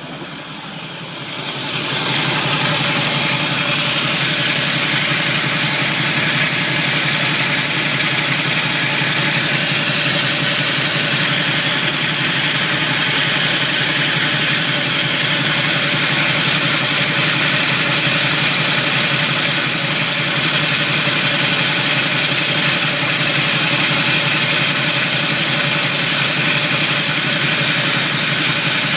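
Chevrolet Camaro engine running steadily with a harsh, dense mechanical noise over it, the grinding that the owner places at the flywheel and torque converter. The level dips briefly at the start, then holds steady.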